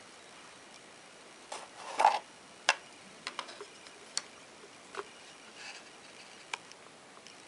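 Scattered light clicks and taps at uneven intervals, about ten over several seconds, the loudest a knock with a brief rustle about two seconds in.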